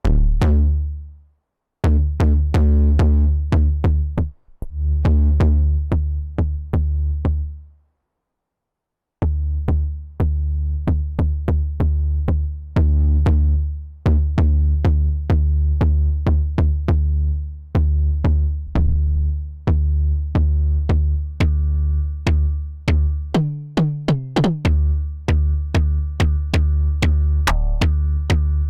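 Arturia MiniFreak six-voice polysynth playing a percussive, drum-machine-like sequenced preset: punchy notes with a heavy deep bass, several a second. It stops briefly twice, the second time for about a second around eight seconds in, and a short pitch glide comes near the end.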